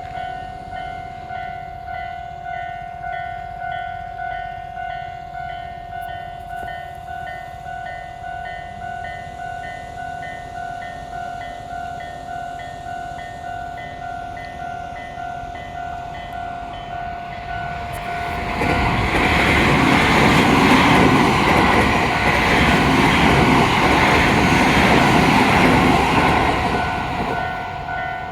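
Japanese level-crossing warning bell ringing in a steady repeating electronic ding, about one and a half strikes a second. About 18 s in, a Tobu Tojo Line train passes over the crossing loudly for some nine seconds, nearly drowning the bell, and dies away near the end.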